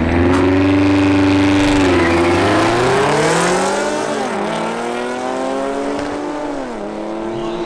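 A BMW X5M's twin-turbo V8 and a supercharged Audi S4 launching at full throttle in a drag race. The engine note climbs hard, dropping at each upshift about two, four and seven seconds in, and fades a little as the cars pull away.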